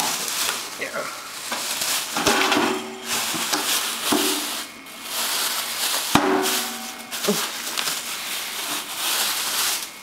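Clear plastic packaging bag crinkling and rustling in irregular surges as it is pulled off a toaster oven, with a couple of sharp knocks.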